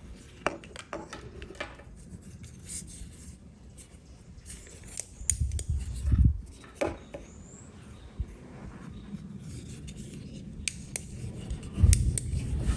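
Handling noise from a small plastic rechargeable torch being picked up, switched on and moved about on a tabletop: scattered light clicks and taps, with a few dull thumps around the middle and again near the end.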